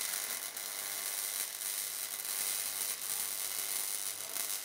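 MIG welding arc burning steadily as a bead is laid on construction-grade steel tubing.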